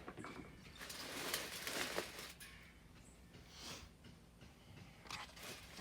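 Rustling and scraping of hanging baskets, plant pots and potting soil being handled, in several short bursts, loudest about one to two and a half seconds in.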